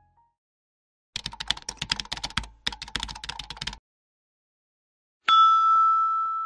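Sound effect of rapid computer-keyboard typing that lasts about two and a half seconds, with a brief break in the middle. After a pause a single loud chime starts suddenly and rings on, slowly fading.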